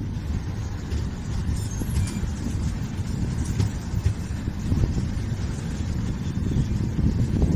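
Indian Railways passenger train in motion, heard from its open coach door: a steady low rumble with wind buffeting the microphone.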